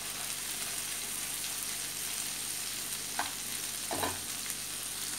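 Fish pieces frying in oil with curry leaves in a shallow pan, a steady sizzle, the fish by now well cooked through. Metal tongs click against the pan twice, about three and four seconds in.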